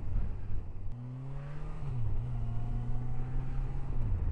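Kawasaki Versys 1000's inline-four engine pulling under way over a steady road rumble; about a second in its note rises, then falls and holds steady.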